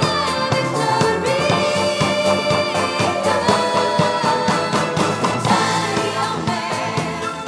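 Symphony orchestra and band playing Philadelphia soul live, with singing over a steady dance beat.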